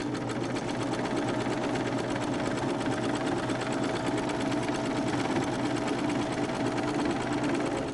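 Sewing machine running at a steady high speed, its needle stitching fast and evenly through layered cloth as a star is sewn onto a flag.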